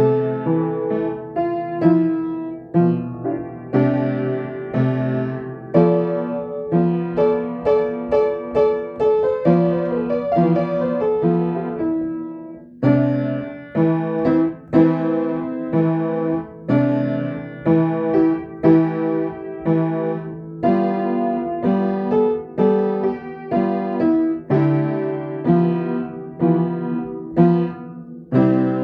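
Solo piano playing a calm melody over chords, with notes struck in quick succession and a short pause in the phrasing about twelve seconds in.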